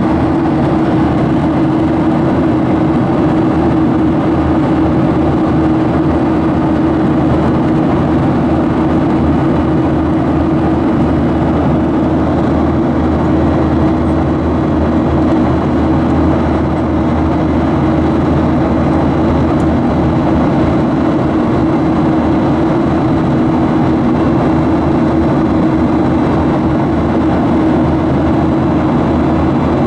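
Steady drone of a Boeing 737's jet engine and rushing air, heard inside the cabin from a window seat beside the engine, with a low hum holding one pitch throughout.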